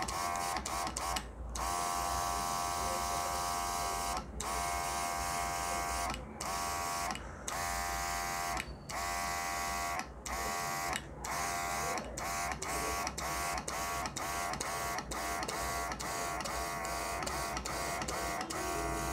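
Small electric motor of a cordless portable airbrush compressor running with a steady whine and a hiss of air through the airbrush. It cuts out briefly again and again, every second or two at first and several times a second near the end.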